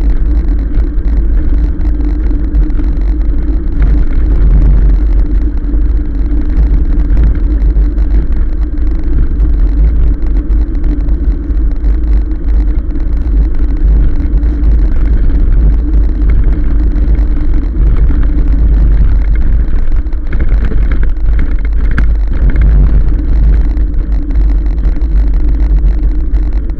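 Riding noise from a 1000-watt e-bike on a tarmac road: wind buffeting the microphone in a loud, continuous rumble, with a steady hum and tyre noise underneath.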